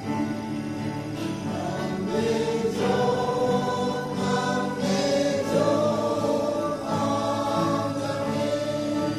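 Mixed choir of men and women singing a hymn together, the voices holding long sustained notes.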